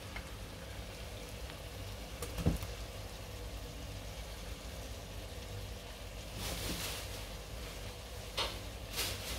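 Vegetables frying gently in a pan, a steady low sizzle. A knock comes about two and a half seconds in, and a metal spoon scrapes and clicks against a bowl in the second half as food is scraped into the pan.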